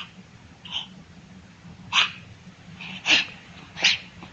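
A dog barking, several short sharp barks roughly a second apart.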